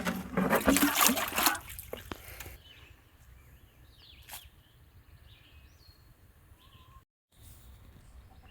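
Loud rustling and crackling for the first two seconds or so, then quiet with a few short, high cheeps from young chickens.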